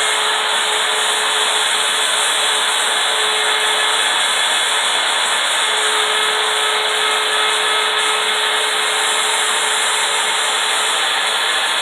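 Handheld router with a small CNC carving bit in a collet reducer, running steadily as it routs letters into a wooden sign; a continuous high whine and the hiss of the bit cutting the wood.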